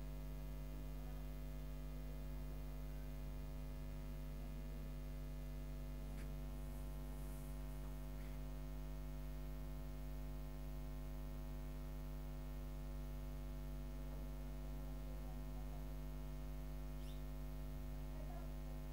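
Steady low electrical hum with a stack of even overtones, unchanging throughout, with a couple of faint brief ticks.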